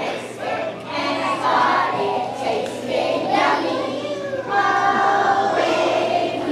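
Young children's choir singing a holiday song.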